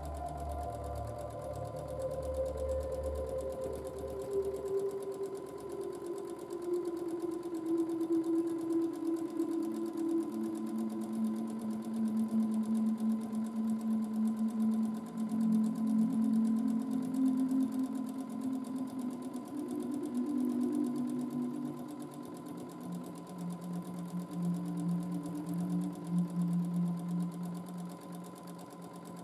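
Domestic sewing machine stitching in free-motion quilting, its motor whirring at a speed that keeps changing: the pitch sinks slowly over the first several seconds, then drifts up and down.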